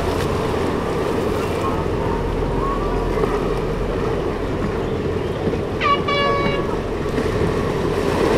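Steady wind and lapping surf at the water's edge, with a short high call about six seconds in that drops in pitch at its start and then holds briefly.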